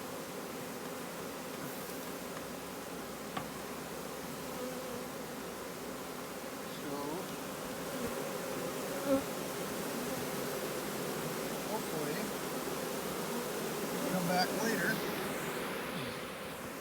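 A swarm of honeybees buzzing steadily around a hive box, the dense hum of many bees at once, as a freshly caught swarm settles into its new hive.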